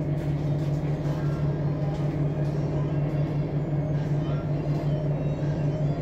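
Cabin sound of a 2007 Blue Bird Xcel 102 CNG transit bus, its John Deere 8.1G natural-gas engine running with a steady low hum.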